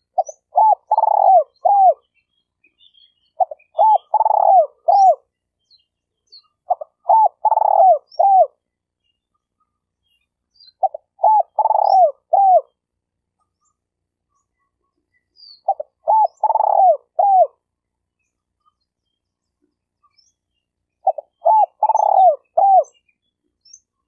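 Spotted dove cooing: six phrases of five or six short, arching coos each, spaced a few seconds apart. Faint high chirps from other birds fall in the gaps.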